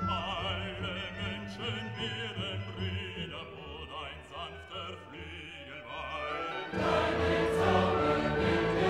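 Classical vocal music: an operatic voice singing with a wide vibrato, then about seven seconds in a louder, fuller passage with choir and orchestra holding a long note.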